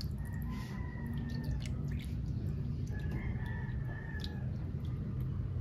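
A rooster crowing twice, each crow a long held call of about a second and a half, over a steady low rumble.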